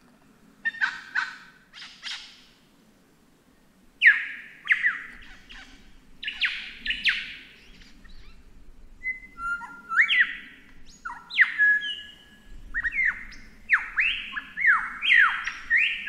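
Lyrebird singing: clusters of sharp, downward-sweeping whistled notes, with a pause of about two seconds near the start, building at the end into a fast run of repeated falling notes, about four a second.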